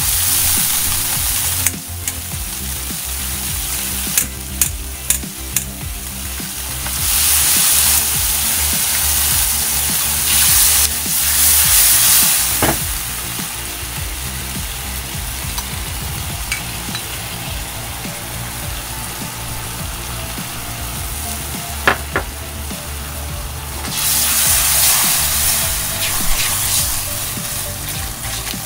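Kung pao sauce sizzling and bubbling in a wok over a gas flame, with a metal ladle stirring and now and then clinking against the pan. The sizzle swells louder a few times, and there are a few sharp ladle clicks a few seconds in.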